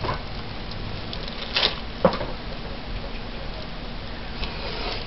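Foam brush dabbing on a paper journal page on a wooden table: soft tapping, with two sharper knocks about half a second apart a little after one and a half seconds in, over a steady low background hum.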